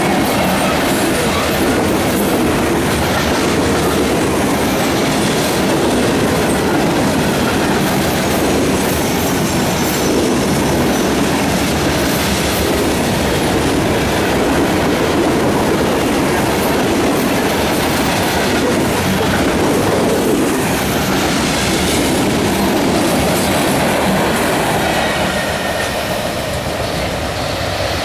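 Loaded freight gondola cars rolling past close by: a steady, loud rumble of steel wheels on the rails that eases a little near the end.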